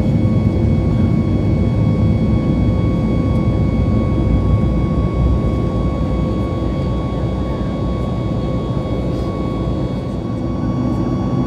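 Cabin noise of a Boeing 737 MAX 8 climbing after takeoff, heard from a window seat beside its CFM LEAP-1B turbofan engine: a steady low roar with a few steady whining tones above it.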